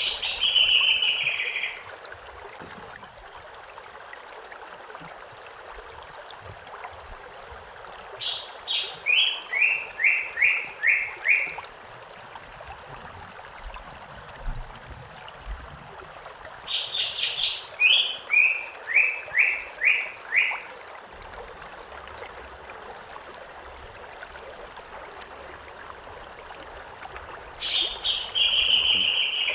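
Stream flowing steadily, with a songbird singing the same short phrase four times, about every nine seconds: a quick run of high notes that step down in pitch.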